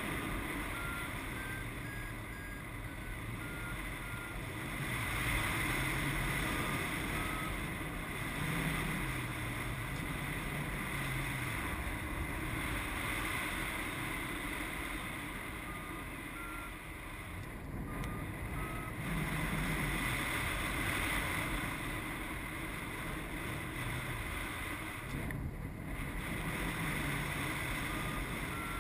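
Steady rushing airflow and wind buffeting on the microphone of a paraglider's harness camera, swelling and easing. A few runs of faint short electronic beeps stepping in pitch sound through it: a variometer signalling climb in lift.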